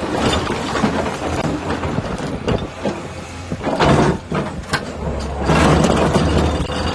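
A 50-tonne excavator's diesel engine running with a vibro ripper attachment at work, giving irregular clattering and knocks. A couple of louder knocks come about four seconds in, and the engine drone grows stronger about a second later.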